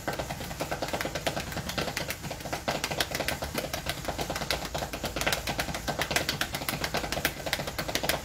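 Rapid, even tapping clicks, several a second, from feet stepping quickly in place on a tiled floor during a seated exercise.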